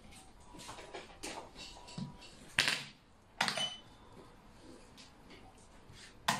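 Xiangqi pieces clacking on the board: two sharp clacks a little under a second apart near the middle as a piece is moved, and another sharp clack near the end as the next piece is set down, with fainter clicks of pieces being handled earlier.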